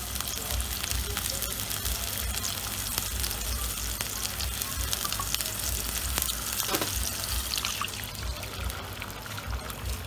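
Sliced sausages sizzling and crackling in oil in a non-stick frying pan, a steady hiss dotted with many small pops, easing off a little near the end.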